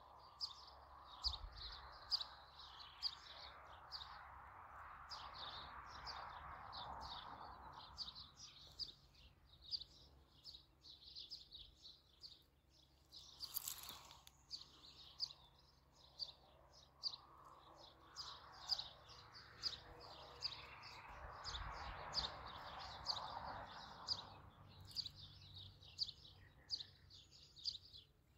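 Small birds chirping faintly in quick, high, repeated notes. Under them a soft rushing noise swells in the first third and again in the second half, and there is a single sharp click about halfway through.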